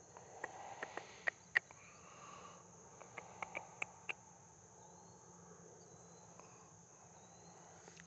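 Faint outdoor insect chorus, crickets trilling in a steady, unbroken high-pitched drone. Two quick clusters of sharp clicks and light knocks fall in the first half.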